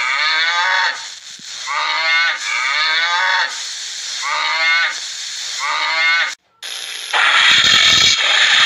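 Cattle mooing: a run of about five lowing calls, each rising and then falling in pitch. Near the end the moos stop and a loud, harsh, noisy sound takes over.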